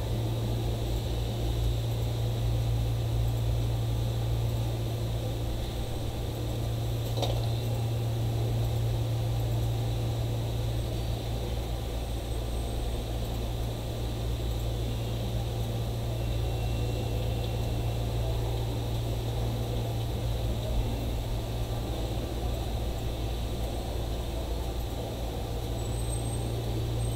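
A steady low droning hum that starts abruptly and holds evenly, with one faint click about seven seconds in.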